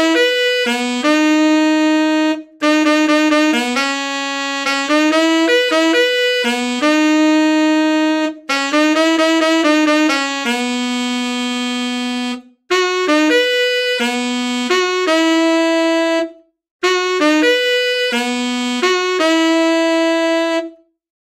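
Solo saxophone playing an unaccompanied one-note-at-a-time pop melody: quick short notes mixed with longer held ones, in phrases broken by short pauses every few seconds.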